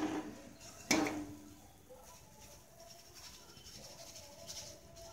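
A perforated metal ladle knocks once against the rim of a metal kadai about a second in, with a short metallic ring, while draining fried boondi. The rest is quiet.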